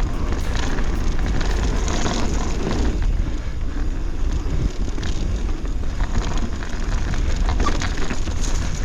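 2024 Pivot Switchblade full-suspension mountain bike descending at speed: tyres rolling and crunching over a rocky dirt trail, with scattered clicks and knocks as the bike rattles over rocks. Heavy wind rumble on the microphone throughout.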